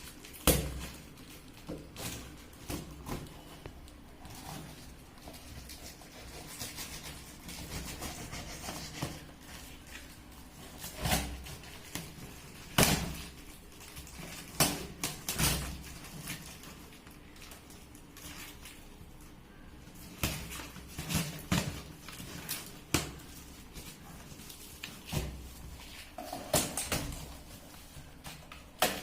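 Parcel being unboxed by hand: irregular knocks, clunks and clicks with stretches of rustling packaging as a water filter is taken out of its box.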